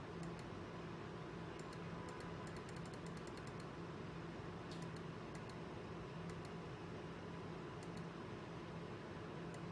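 Computer mouse button clicking, in single clicks and pairs with a quick run of about ten clicks around the second and third seconds, as the pointer clicks through a calendar. A steady low hum runs underneath.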